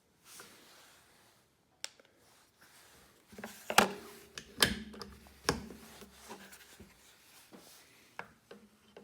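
Handling noise from a CZ 457 bolt-action rifle and a digital trigger pull gauge: rubbing and a string of sharp clicks, the loudest a few seconds in, with a couple more near the end, as the rifle is made ready for another trigger weight measurement.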